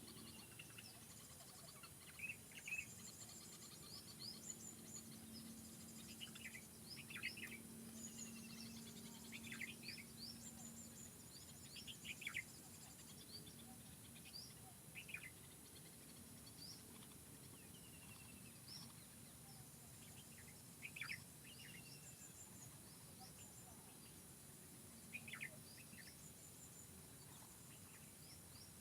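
Several songbirds chirping and calling over faint forest ambience: many short high chirps and quick falling whistles, scattered irregularly, louder near the start and middle and sparser toward the end.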